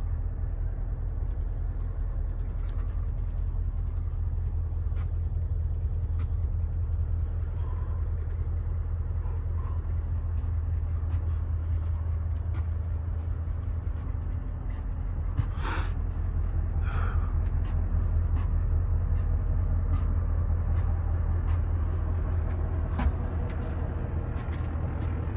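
The Mercedes-Benz O 404 coach's 380 hp diesel engine idling steadily, a low rumble heard from inside the passenger cabin. About 16 seconds in comes a short hiss of compressed air let out of the bus's air system, with a fainter one just after.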